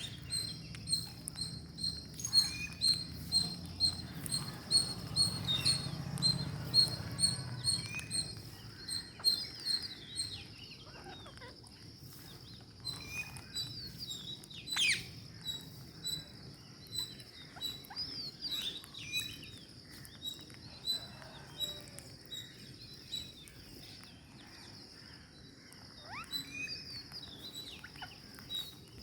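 Birds calling: a fast run of short, high chirps, two to three a second, for the first ten seconds, then a few sharp calls that swoop steeply downward in pitch, over a steady high hiss.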